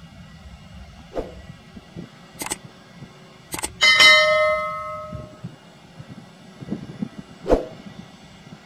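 A subscribe-button sound effect: a few sharp clicks, then a bright bell chime about four seconds in that rings out and fades over about a second and a half. Underneath is a low steady rumble from the taxiing airliner, with another sharp thump near the end.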